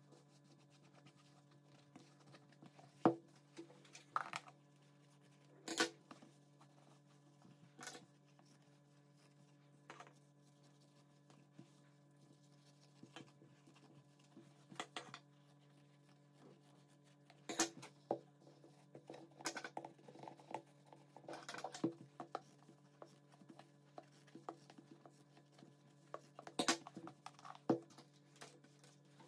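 Scissors cutting denim and the fabric being handled on a plastic container: scattered separate snips, clicks and scrapes over a faint steady hum.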